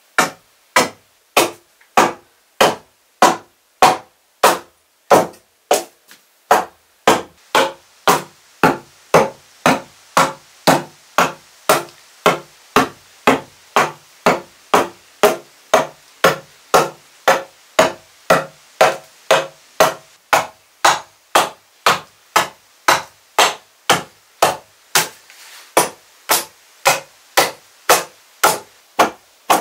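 Steel axe chopping into the edge of a wooden floor plank in steady, even strokes, a little under two a second, hewing the edge down to a chalk line.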